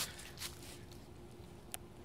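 Quiet outdoor background with a few soft handling clicks and rustles from a handheld camera being moved, a sharp click near the end, and a faint steady hum underneath.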